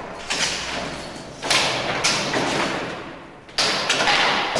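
Table football being played: several sharp knocks as the ball is struck by the figures on the rods and bangs against the wooden table.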